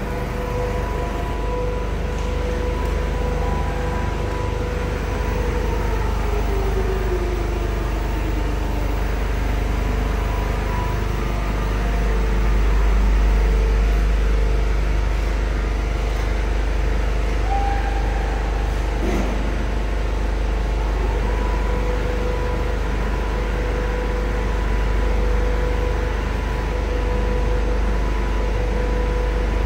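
Four-side sewing machine line and Richpeace high-speed quilting machine running: a steady low machine rumble with a constant motor hum. There is a falling whine about six to nine seconds in.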